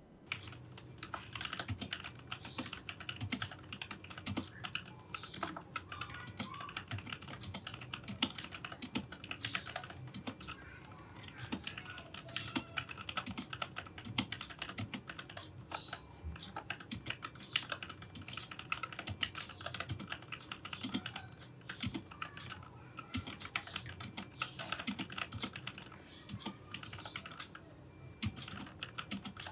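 Typing test on a Vortex VX64 Lite mechanical keyboard with stock Gateron Milky Yellow linear switches, an acrylic case and PBT OEM-profile keycaps: a fast, continuous clatter of keystrokes with a few brief pauses.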